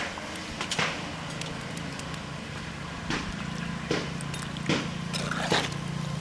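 A ladle stirring snake gourd pieces in a cooking pan, with a handful of short scrapes against the pan, over a steady low hum.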